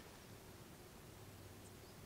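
Near silence: quiet mountain-top ambience with a faint bird chirp near the end.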